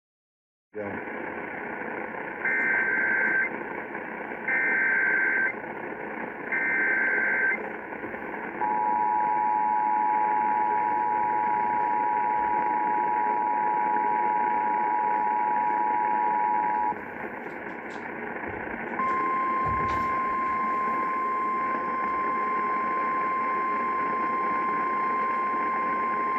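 Emergency Alert System activation received over a hissing radio: three short buzzy SAME data bursts about a second apart, then the two-tone EAS attention signal held for about eight seconds, and after a short pause the single steady NOAA Weather Radio warning alarm tone. The sequence heralds a National Weather Service tornado warning.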